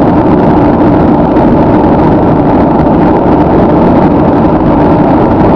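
Loud, steady road noise of a car cruising at highway speed, heard from inside the cabin: an even rumble of tyres, wind and engine with no change.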